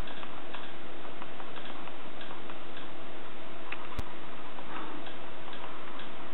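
Soft, irregular ticking clicks, two or three a second, over a steady hum and hiss, with one sharp click about four seconds in.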